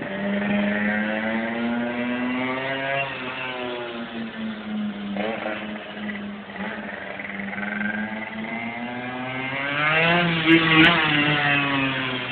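Metrakit minimoto engine revving high, its pitch rising and falling with the throttle. About ten seconds in it gets loudest, the pitch rising sharply and then dropping as the bike passes close by.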